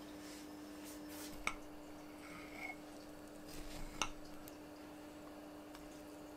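Two light clinks of a utensil against a plate, one about a second and a half in and one about four seconds in, over a steady low room hum.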